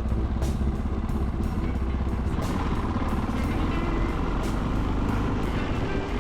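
Yamaha XT660Z Ténéré's single-cylinder engine running steadily on the move, its note rising a little about two and a half seconds in, with music with a steady beat over it.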